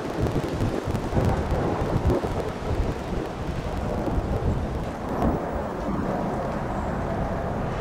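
Wind buffeting the microphone with a steady low rumble as a train approaches in the distance on the curved track; faint wheel squeal begins near the end.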